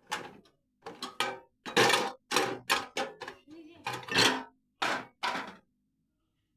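About a dozen irregular sharp knocks and clanks on sheet metal, each ringing briefly, from hand work on a sheet-metal HVAC duct damper.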